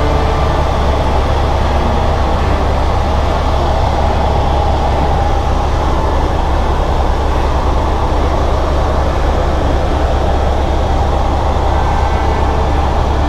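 Helicopter in flight heard from inside the cabin: a loud, steady drone of rotor and engine, heaviest at the low end.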